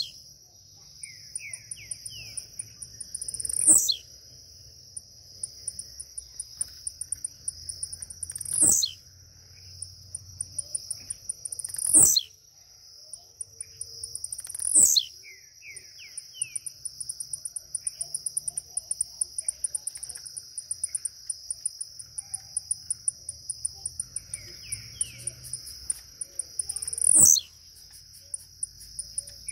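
Blue-black grassquit (tiziu) singing its short, falling 'tiziu' note about five times, a few seconds apart, the song it gives in its leaping display. A steady high insect trill runs underneath.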